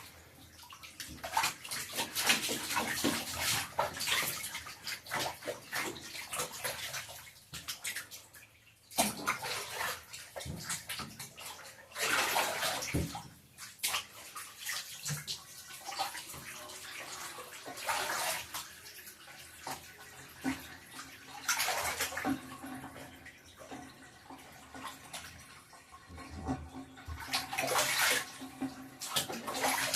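Water splashing and running in a bathtub while a cat is bathed, coming in uneven bursts.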